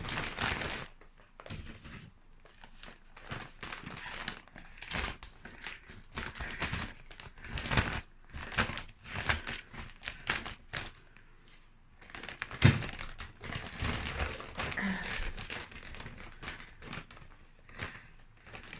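Plastic bag of herb potting soil crinkling and rustling in irregular bursts as it is handled to cover sown seeds, with one sharper knock about two-thirds of the way through.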